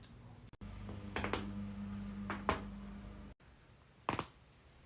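Neck joints cracking during an adjustment: sharp pops about a second in, again about two and a half seconds in, and once more near the end. A steady low hum runs under the first two pops.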